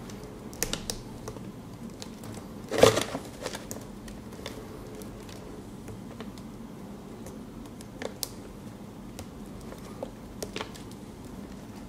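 Scattered plastic clicks and small knocks from the Corsair Type 4 PCIe power cable connectors being handled while their latches are tested. The loudest knock comes about three seconds in.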